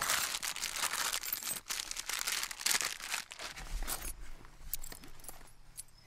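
Hands rummaging through clothes and a nylon bag: loud rustling and crinkling of fabric for about three seconds, then quieter light clicks as a ring of keys is handled.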